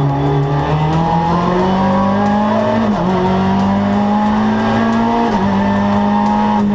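Renault Twingo R2 rally car's 1.6-litre four-cylinder engine heard from inside the cabin under hard acceleration. The pitch climbs, drops sharply at an upshift about three seconds in, climbs again and drops at a second upshift past five seconds, then holds steady.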